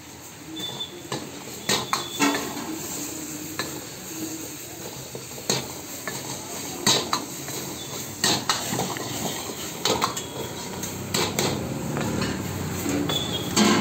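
A long-handled metal ladle scraping and clanking against a wok as chicken is stir-fried in sauce, over a steady frying sizzle. The clanks come irregularly, every second or two, some with a brief metallic ring.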